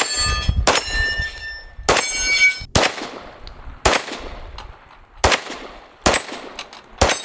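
Staccato XC 9mm pistol firing about eight shots of 115-grain ammunition at an unhurried pace, roughly one a second, with steel swinger targets ringing after some of the hits.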